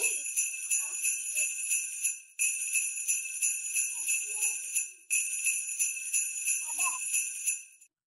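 Jingle bells shaken in a steady rhythm, about four to five shakes a second, in a short run that cuts off and starts again twice.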